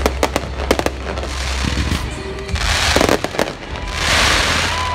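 Fireworks: a quick string of sharp bangs from aerial shells bursting in the first second, then a dense crackling hiss from glittering crackle effects that swells twice in the second half.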